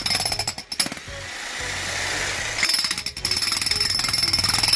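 Corded electric jackhammer breaking into hard ground, hammering in rapid even strokes over a steady high whine. It changes to a smoother hiss for a second or so in the middle.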